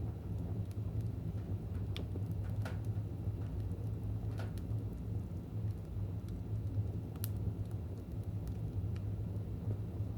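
Fire burning in a fireplace: a steady low rumble with scattered sharp crackles and pops every second or two.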